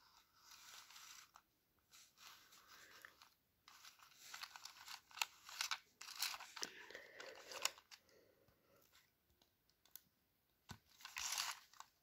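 Faint, irregular rustling and scraping as a hand grips and turns a plastic VTech Tut Tut Baby Flitzer toy bulldozer, with a few sharp clicks in the middle.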